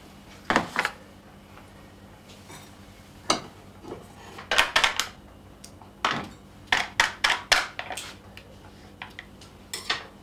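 Kitchenware being handled at a counter: pans, dishes and utensils knocking and clinking in a string of short, sharp clatters with pauses between.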